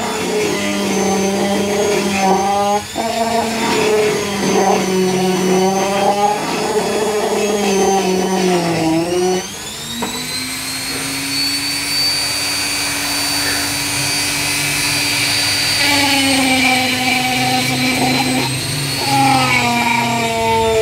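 Electric key-cutting machine running and cutting metal, its motor pitch sagging and wavering under load. About halfway through it rises to a steadier, higher whine, then sags again under load near the end.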